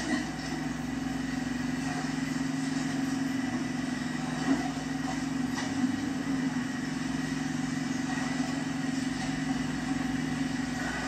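Steady engine hum, running at an even idle, with a couple of faint knocks about halfway through.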